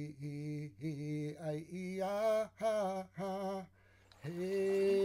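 A man's voice singing a slow chant in short held syllables; the pitch steps up about two seconds in, and after a short pause near the end he holds one long note.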